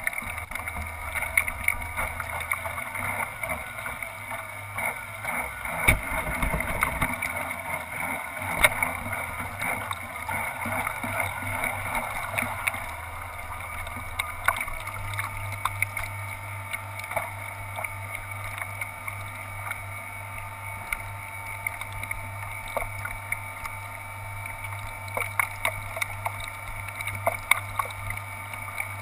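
Model boat's motors and propellers running steadily, heard from a camera mounted on the boat's deck, with small waves slapping and splashing against the hull. The low motor hum shifts up in pitch about halfway through.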